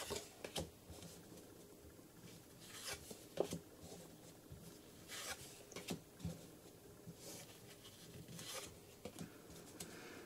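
Faint, short rustles and slides of Yu-Gi-Oh! trading cards being moved one by one off the front of a hand-held stack, coming at irregular moments.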